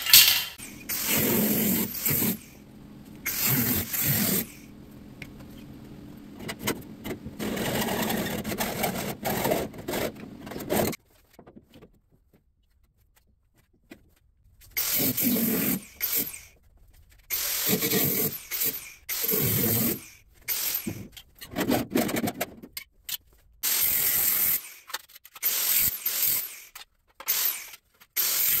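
Scraping and clattering of metal being handled. After a short silence, an angle grinder cuts a steel strip in repeated short bursts of about a second each.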